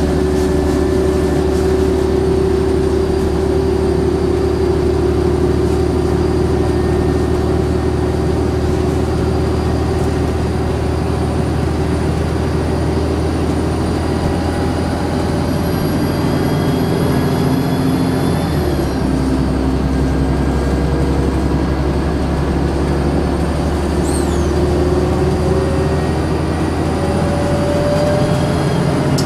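Volvo Olympian double-decker bus's turbocharged diesel engine pulling, with a high turbo whistle over it that rises slowly. About two-thirds of the way through, the engine note and the whistle drop suddenly, then both start climbing again.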